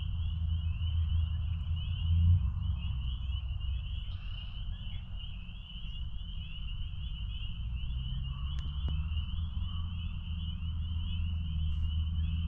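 Chorus of spring peepers: many high peeps overlapping into a continuous band of calls, over a steady low rumble.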